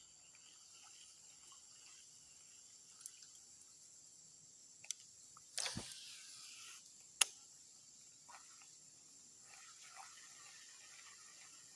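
A brief splash in water a little before six seconds in, with a few sharp clicks around it and a louder click just after. Under it runs a steady high insect drone.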